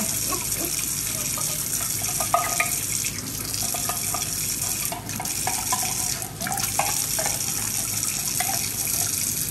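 Kitchen faucet running steadily into a sink, with a metal spoon scraping and clinking inside an emptied soup can as it is rinsed out under the stream.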